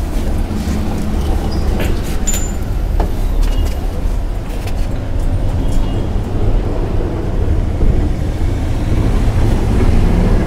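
Steady low rumble of road traffic, with a few light clicks of small metal parts being handled in the first few seconds.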